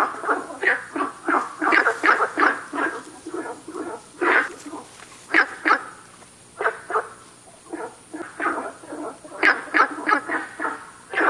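Günther's frog (Hylarana guentheri) calling: runs of short, rough, bark-like notes in quick succession. The calls thin out about six seconds in and pick up again near the end.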